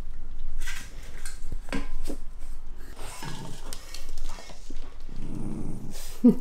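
Shiba Inus growling low around their food bowls, two short rumbles a couple of seconds apart, with light clicks and clinks from a stainless steel bowl.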